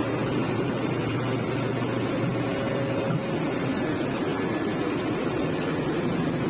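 Kobelco SK200 excavator's diesel engine running steadily, a constant low drone with a faint steady tone over it.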